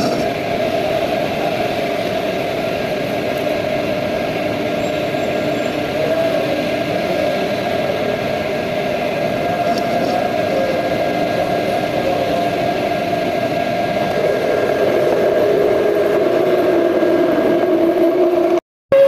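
Metal lathe running, with a steady mechanical hum and whine that drift slightly in pitch. Near the end it breaks off for an instant and resumes as a single steadier tone.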